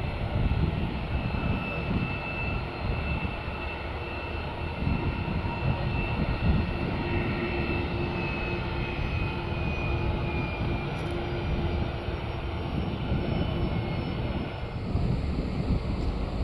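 Jet engines of a Boeing 747-8F running: a steady rumble with a high whine that slowly drops in pitch through the middle.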